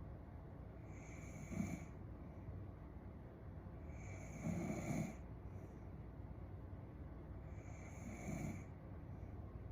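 A young woman snoring softly in her sleep. Three snores come about three and a half seconds apart, the middle one the loudest, over a faint steady background hiss.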